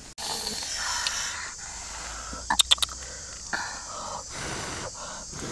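Grilled squid being handled on a metal plate and pulled off bamboo skewers: rustling, with a quick run of sharp clicks about two and a half seconds in and a few lighter clicks after, over a steady high insect buzz.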